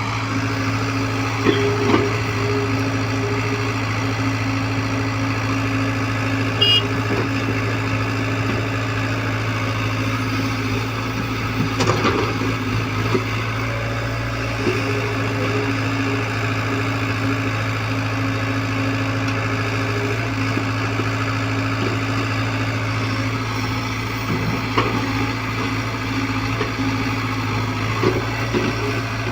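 Hyundai excavator's diesel engine running steadily at a constant low drone, with a few brief knocks scattered through it.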